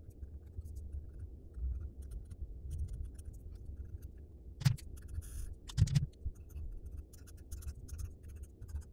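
Felt-tip marker scratching and squeaking on paper in short strokes as words are written and boxes are drawn. Two louder taps come about halfway through.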